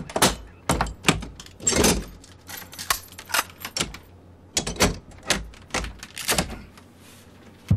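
Several metal door locks on a cockpit door — slide bolts, a chain lock and latches — being fastened one after another by hand: a quick run of metallic clacks, slides and rattles, with a short break about halfway through.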